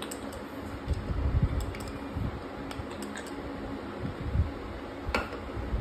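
Handheld trigger pump oil can being squeezed to oil a scooter engine, giving a scatter of light clicks with a sharper click near the end. A few dull low bumps come in between.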